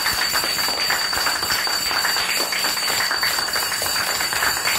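Applause: many children and adults clapping their hands at once, a dense, steady clapping.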